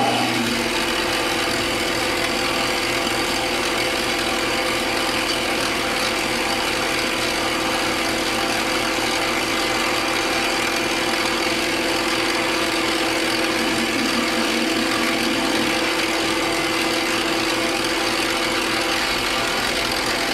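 Metal lathe running under load with a steady pitched whine, its carbide insert tool facing the end of a rod spinning in a 5C collet and cutting it down to length.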